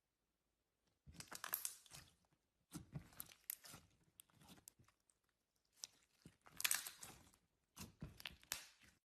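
Glitter slime being stretched and squished by hand, making sticky, dense clicking and popping noises in four bursts with short pauses between them, starting about a second in.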